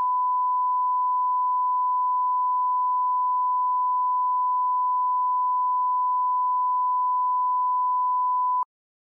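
Steady 1 kHz line-up tone played over colour bars at the head of a broadcast tape, a single unwavering pitch held at reference level for setting audio levels. It cuts off suddenly near the end as the countdown clock appears.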